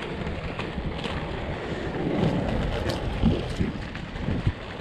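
Three-wheel inline skate wheels rolling fast over a tarmac path, with wind rushing over the action camera's microphone and a few small clacks from the wheels over the surface.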